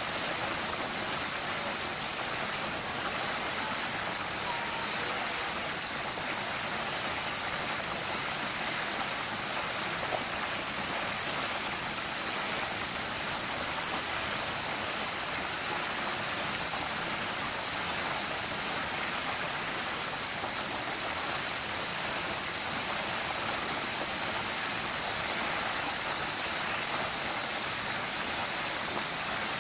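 Steady, high-pitched droning hiss of a summer cicada chorus, unbroken and even throughout.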